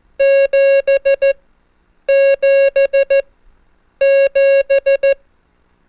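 Morse code tone sending the digit 7 (dah-dah-dit-dit-dit) three times: two long beeps and three short ones per group, with a pause of under a second between groups.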